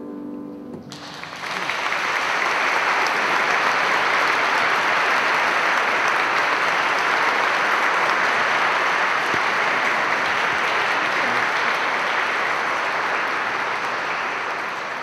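Audience applauding. The music's last chord dies away in the first second, the applause starts about a second in, stays steady and fades near the end.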